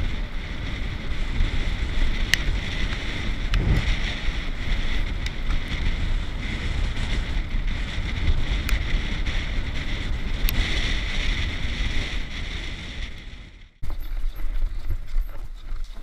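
Wind buffeting a helmet-mounted camera and mountain-bike tyres rumbling over a dirt track at speed, with scattered sharp clicks of stones and bumps. The sound cuts out abruptly near the end, then the rushing resumes.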